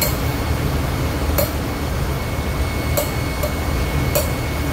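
Steady low drone of ship's engine-room machinery, with an oxy-acetylene torch heating a ring on a pump motor's rotor shaft. Four sharp metallic clicks stand out over it.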